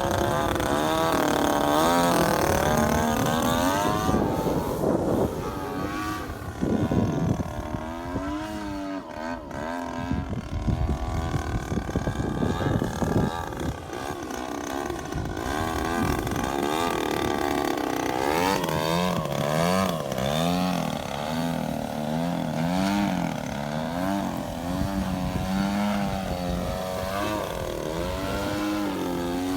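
Two-stroke gas engine of a giant-scale RC YAK54 aerobatic plane in flight, its pitch sweeping up and down as the plane passes and changes throttle. In the second half the pitch wobbles up and down about once a second.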